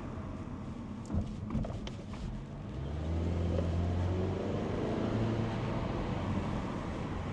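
Car driving, with steady road and engine noise. About three seconds in, a deeper engine hum swells up, holds for a second or two and then eases. A few light clicks come shortly before it.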